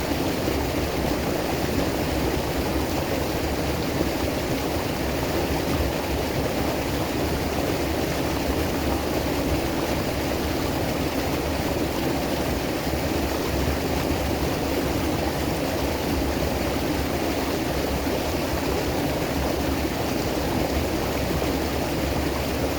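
River water flowing and rushing over rocks, a steady, even noise.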